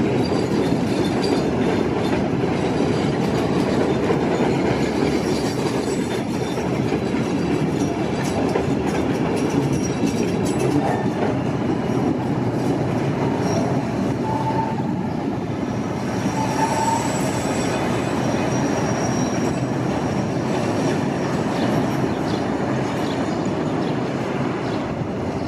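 CTA 'L' rapid-transit train running past on the rails, a steady loud rumble with rapid clicking of the wheels over the rail joints. Short high wheel squeals come in about halfway through.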